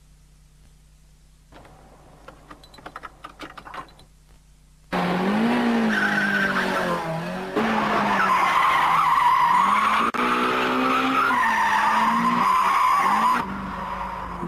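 Faint clicking and rustling. About five seconds in, a Toyota AE86 starts drifting: its engine revs up and down while its tyres squeal, in short clips joined by sudden cuts. Near the end the squeal stops and the engine runs on more quietly.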